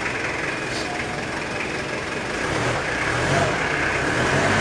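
Mitsubishi Delica Space Gear's diesel engine idling just after starting, getting a little louder about halfway through.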